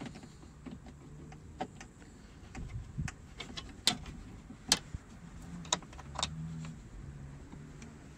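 Scattered sharp metallic clicks and light knocks of a car door's release cable and latch fittings being worked by hand. The loudest clicks come in a cluster between about four and six and a half seconds in.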